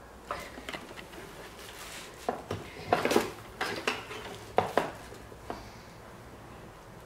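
Handling noise from a hard plastic laser power meter: a string of irregular clicks, knocks and clatters as it is turned over and set down on a bench, the loudest knocks a few seconds in.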